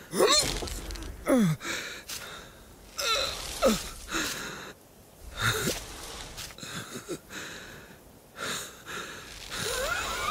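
A cartoon sheep character's voice making strained, wordless sounds: about five short cries that slide down in pitch, with breathy sounds between them.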